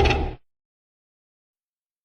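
The end of a loud monster roar sound effect, a deep rumbling growl with a held tone on top, cutting off abruptly less than half a second in; the rest is dead silence.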